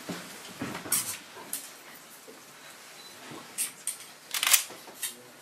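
A hand rubbing and scratching at a paper poster taped to a wall: a few short, scratchy rustles, one about a second in and a louder cluster near the end.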